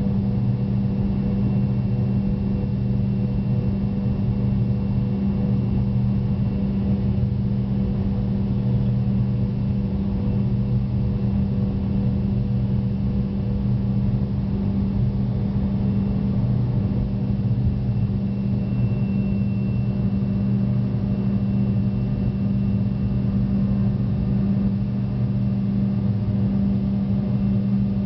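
Fokker 100's two rear-mounted Rolls-Royce Tay turbofans at take-off power, heard inside the cabin as a steady, deep drone with low hum tones through the take-off run and lift-off.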